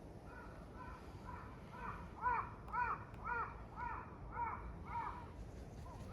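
A crow cawing over and over, about two short calls a second, growing louder toward the middle and then easing off.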